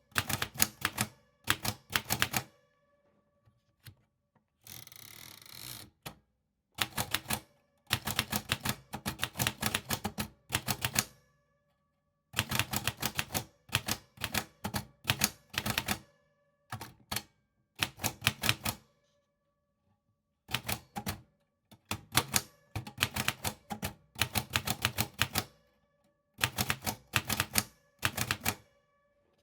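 Typewriter typing: quick runs of sharp key strikes in word-length bursts with short pauses between them, and a second-long sliding sound about five seconds in.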